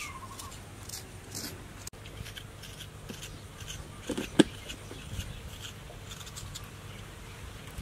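Small clicks and scrapes of a paring knife cutting and peeling the brittle shells of fresh longan fruit, with one sharper knock about four seconds in.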